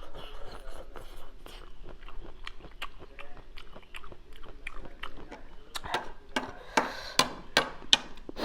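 Close-up chewing of papaya salad with noodles: a run of wet mouth clicks and smacks that gets louder and busier a few seconds before the end.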